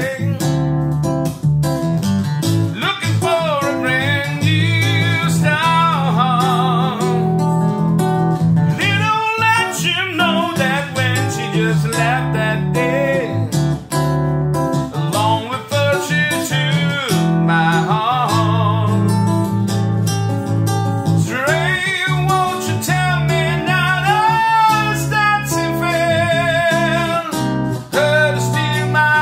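Music: a man singing a slow song with wavering vibrato over an acoustic guitar that he plays throughout, the voice coming in long phrases with short pauses between them.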